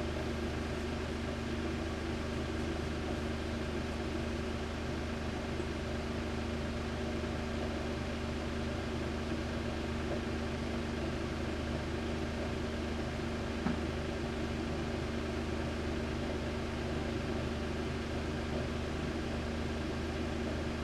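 Steady electrical hum with an even hiss underneath, unchanging throughout, and a single soft click about two-thirds of the way through.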